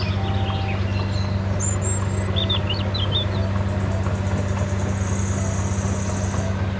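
Crawler bulldozer's diesel engine running steadily under load as it pushes soil, a constant low drone. Birds chirp and trill over it.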